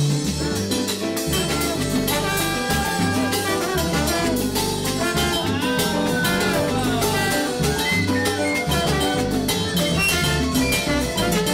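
Live salsa band playing, with trombone over percussion and a repeating bass line.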